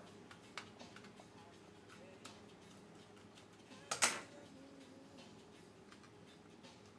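Faint small clicks and light handling noise from hands working a wire into the plastic terminal block of a temperature controller, with one brief louder rustle about four seconds in.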